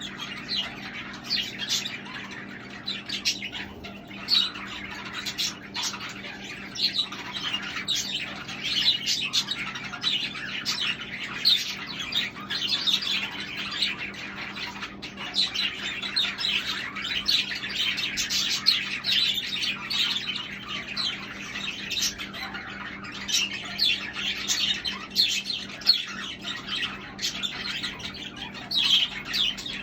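Budgerigars chattering, with many short, overlapping chirps and squawks, over a steady low hum.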